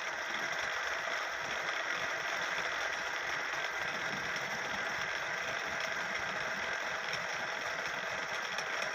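Wood-turning lathe running steadily, a continuous even machine whir and hiss with no pauses.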